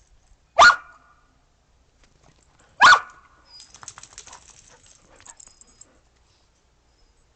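A dog barking twice, single sharp barks about two seconds apart, with softer rustling after the second bark.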